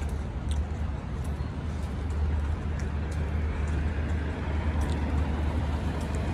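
Road traffic noise from passing cars, with a steady low rumble.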